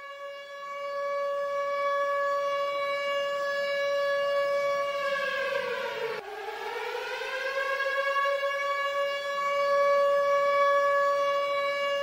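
Air-raid (civil defence) siren wailing on one steady note as the intro of a concert music mix, swelling in over the first second or so. About six seconds in its pitch sags, it cuts out for an instant, then winds back up to the steady note.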